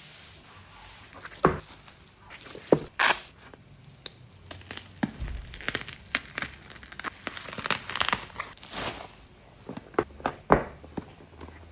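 Packaging being handled and opened: irregular crinkling, rustling and tearing with a few sharp knocks.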